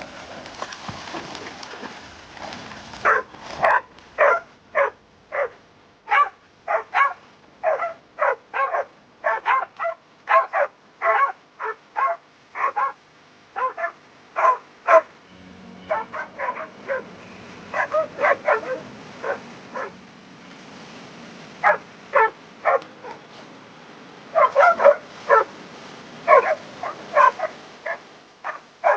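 A dog barking over and over in short, evenly spaced barks, about one or two a second. The barks start a few seconds in, pause briefly now and then, and come faster near the end.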